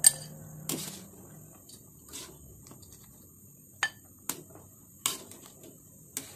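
Wire-mesh skimmer clinking against a metal wok and a plate while boiled beef ribs are scooped out: about six sharp knocks spread out, the loudest right at the start.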